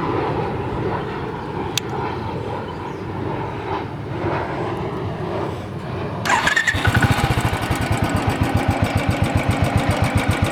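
Royal Enfield Thunderbird single-cylinder engine idling with tappet noise: a rocker arm beating, which the owner puts down to the rocker arm needing adjustment after a new tappet rod and hydraulic lifter were fitted. About six seconds in the sound jumps louder and sharper, into an even beat of about eight strokes a second.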